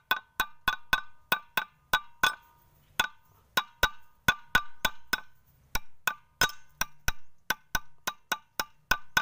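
Steel drift tapped repeatedly on a ball bearing to seat it in a truck gearbox: sharp metal-on-metal taps, about three a second, each with a short ring.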